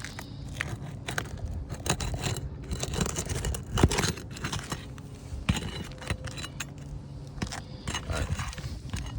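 Steel flat bar prying and scraping under an old asphalt roof shingle, with irregular scrapes and sharp clicks, the loudest about four seconds in. The shingle is worn and sheds loose granules as it is worked.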